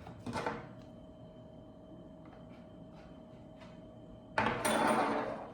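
Cardboard packaging of a camera box being opened by hand: a short rustle near the start, a few faint ticks, then a sliding scrape lasting about a second near the end.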